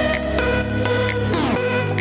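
Electronic dance music track with held synth notes and regular high hi-hat ticks, and a falling synth sweep about one and a half seconds in.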